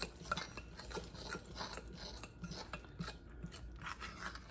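Metal fork scraping and clicking irregularly against a glass mixing bowl while stirring flour, powdered sugar and melted butter into a crumbly shortbread-style dough.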